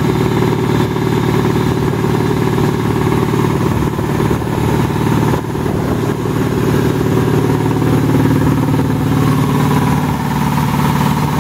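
Ingersoll Rand 10 hp reciprocating air compressor running: the electric motor drives the finned piston pump through a belt, giving a steady, even hum. The tone shifts slightly about three-quarters of the way through.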